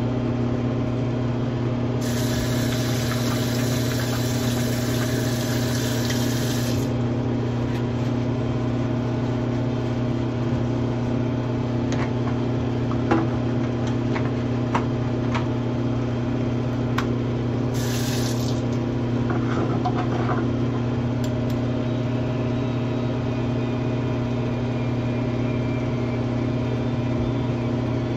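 Bathroom exhaust fan running with a steady, loud hum. About two seconds in, tap water runs for around five seconds, and again briefly later, with a few small clicks of handling in between.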